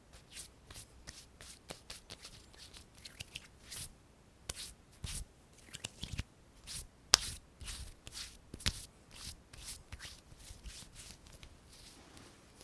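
Hands making ASMR sounds close to the microphone: quick, irregular taps, flicks and rubs, several a second, with one sharper click about seven seconds in.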